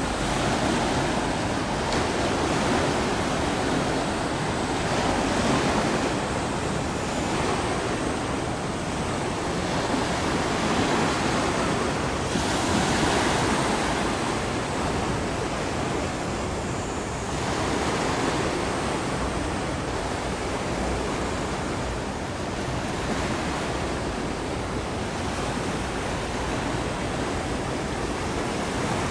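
Steady rushing of wind and water on an open shoreline, swelling and easing every few seconds.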